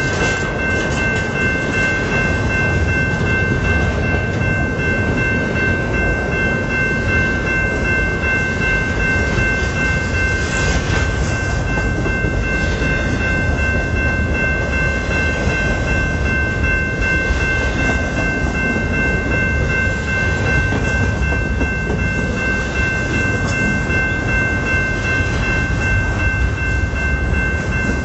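Intermodal freight train's container well cars rolling past at speed over a road crossing, a steady rolling noise of wheels on rail. A crossing warning bell rings steadily over it.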